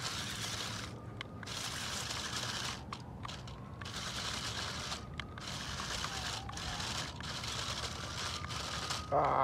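Six-wheel toy RC crawler (JJRC Q69) churning through dry fallen leaves, crunching and crackling in stop-start bursts as it tries to drive out of a spot where it is stuck, with a faint whine from its small electric motor.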